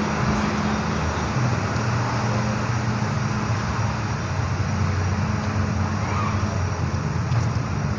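Steady road noise with a motor vehicle's engine running close by, its low hum shifting slightly in pitch.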